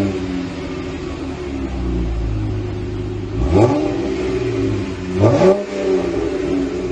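2018 Jeep Wrangler's 3.6-litre V6 idling through an axle-back exhaust with a single-chamber V-tube muffler, blipped sharply twice, about three and a half and five seconds in, each rev rising and dropping back to idle.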